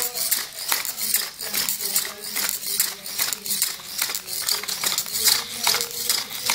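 Two hobby servos working the legs of a walking robot insect: a rapid, irregular clatter of clicks and scrapes as the legs step on a tiled floor, over a faint motor hum.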